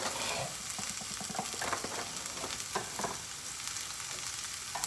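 Food sizzling in a frying pan on the stove: a steady hiss with a few faint clicks.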